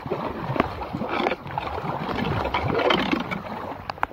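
Floodwater splashing and sloshing as debris is cleared from a clogged storm drain under the water, with a few sharp clicks. The splashing eases near the end.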